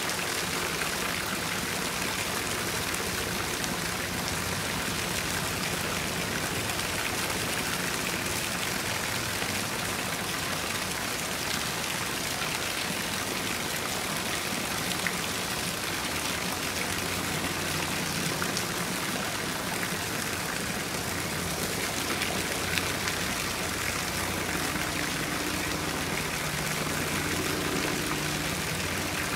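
Small stream of water spilling over rocks into a shallow pool, a steady, even babbling rush.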